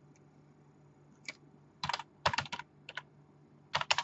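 Typing on a computer keyboard: after about a second of quiet, key clicks come in short quick runs, several keystrokes at a time.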